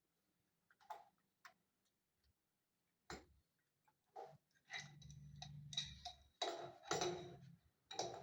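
Faint scattered clicks and light knocks, then a denser run of clicking and scraping from about halfway through: small plumbing fittings being handled as the flexible connector hose is fitted to the angle valve.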